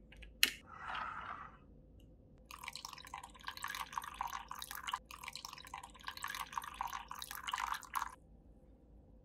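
A sharp click about half a second in, as metal tongs set an orange slice on the glass. Then cold Earl Grey tea is poured in a thin stream into a glass of ice and orange, splashing and trickling for about five and a half seconds before stopping suddenly.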